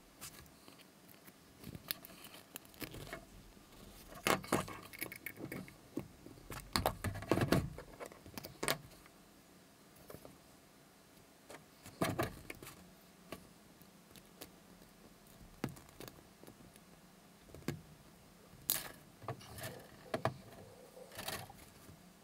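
Needle-nose pliers and small wire eyes being worked into a wine cork by hand: scattered small metal clicks and scrapes with handling rustle, busiest in the first half and again near the end.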